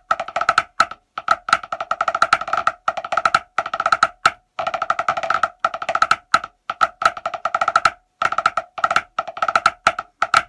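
Drumsticks on a practice pad playing a pipe band snare drum solo in 2/4 hornpipe time: fast rudimental strokes and rolls in short phrases with brief gaps, the pad ringing with a pitched tone on each stroke. The playing stops at the very end.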